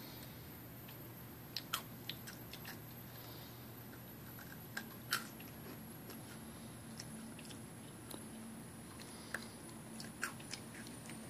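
Small birds pecking at food on a balcony ledge: scattered, irregular sharp clicks and taps.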